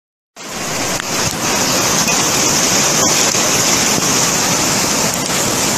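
Heavy rainstorm: a steady, dense rush of downpour noise that cuts in suddenly about half a second in after a brief silence.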